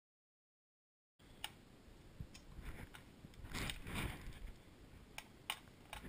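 Faint handling noise of a gloved hand working a rubber hose and metal fittings on a jet ski engine: scattered sharp clicks and rustling, starting about a second in after silence, with a fuller rustle around four seconds in.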